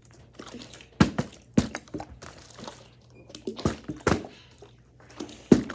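Partly filled plastic water bottles being flipped and thudding down on carpet: about five separate, unevenly spaced thunks.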